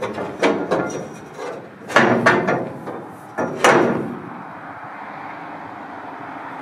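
A long pole knocking and clunking against a raised dump truck bed and its frame: a handful of sharp knocks in the first four seconds, the loudest about two and three and a half seconds in, then a steady low background rush.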